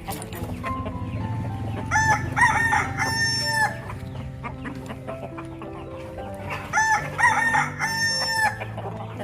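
A rooster crowing twice, each crow a few short notes ending in one long held note, over background music.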